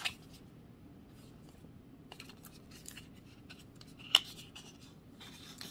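A stiff paperboard playing-card tuck box being worked open by hand: faint scraping and rubbing of card stock, with one sharp click about four seconds in.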